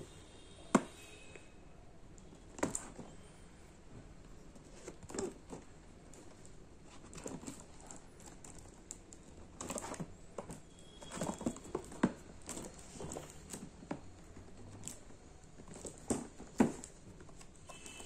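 Cardboard toy box handled and turned over by hand: scattered knocks and taps against the box with short rustling crinkles, the sharpest knocks about a second in, just before the middle and near the end.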